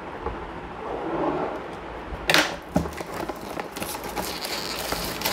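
A toy box's packaging cover being cut open with a knife and peeled off by hand: rustling and crinkling with small clicks, and a louder rip a little over two seconds in.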